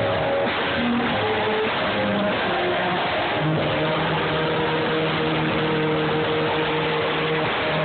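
Church congregation singing a worship song together with instrumental accompaniment, holding one long note through the middle.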